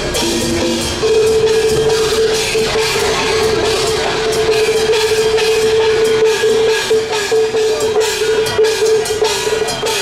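Loud live band music from a procession float: drum kit and cymbals under a melody that holds one long note from about a second in.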